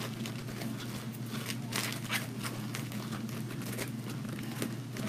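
Ribbon rustling and crinkling in the hands as loops of stiff, sparkly glitter ribbon are twisted and gathered on a bow maker: a run of soft, irregular crackles and rustles.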